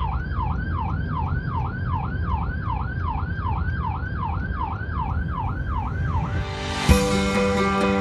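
Police car siren in a fast yelp, its pitch sweeping up and down about two and a half times a second over the car's low road and engine rumble, heard from inside the patrol car. The siren stops about six seconds in; near the end a sharp thump is followed by acoustic guitar music.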